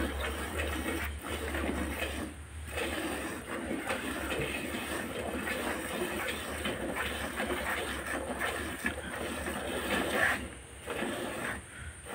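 Hand-milking of a cow: jets of milk squirting in quick succession into a plastic bucket partly filled with milk, with a couple of short pauses.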